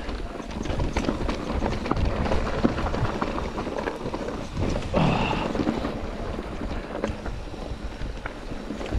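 Mountain bike riding over a rough trail: steady tyre rumble with frequent clicks and rattles from the bike, and wind on the microphone. A short falling tone about five seconds in.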